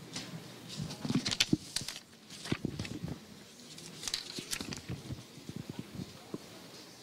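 Irregular handling noises with no speech: scattered light clicks and knocks with some rustling, busiest about a second in and again around four seconds in.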